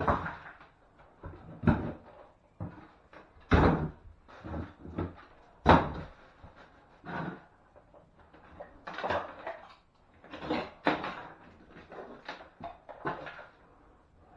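Irregular wooden knocks, thuds and scrapes as old boards and timber are pried off a stripped bathroom wall and handled, a hit every second or two, the loudest a little after 3 s and near 6 s.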